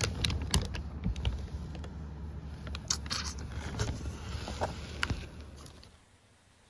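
Clear plastic wrapping crinkling and rustling as a wicker basket is handled, in scattered sharp crackles over a steady low rumble. The sound fades out near the end.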